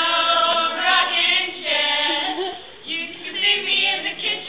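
A group of women singing a song together without instruments, with a brief break in the singing a little past the middle.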